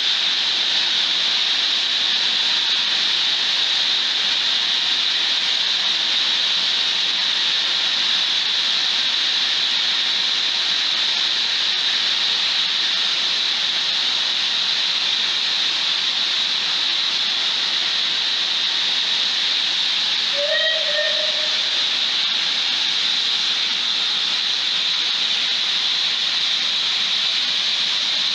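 Merchant Navy class steam locomotive 35028 Clan Line venting steam: a loud, steady high hiss that holds unbroken throughout.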